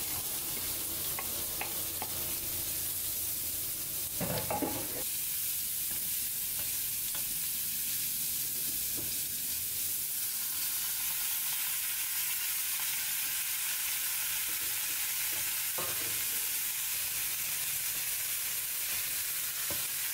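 Sausage, bacon and onion sizzling in a frying pan while a wooden spatula stirs them, with small knocks of the spatula against the pan and a brief louder stirring noise about four seconds in.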